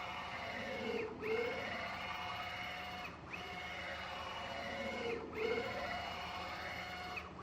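CNC Z axis driven by a stepper motor through a 10 mm-lead ball screw, running back and forth over its full 275 mm stroke at high speed. The motor whines steadily at several fixed pitches, and the whine dips briefly and slides down and back up at each reversal, about every two seconds.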